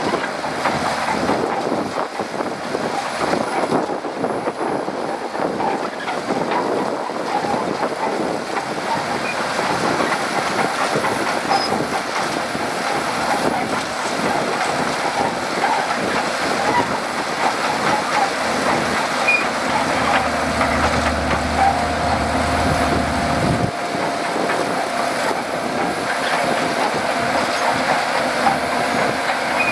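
Shantui DH17C2 bulldozer at work pushing sand: its diesel engine running steadily under load with a continuous clatter from the steel crawler tracks. A deeper rumble joins about twenty seconds in and cuts off suddenly a few seconds later.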